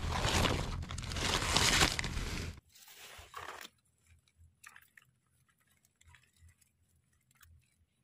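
Rustling and crunching of wet leaf litter as a hand clears dead leaves and pulls up a white mushroom. It is loud for about the first two and a half seconds, then drops suddenly to faint crackles and ticks.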